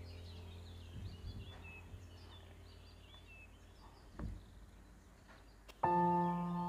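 Bird chirping, part of a soft background music track, over a low hum, with a couple of soft bumps. Near the end a held, bell-like chord comes in suddenly.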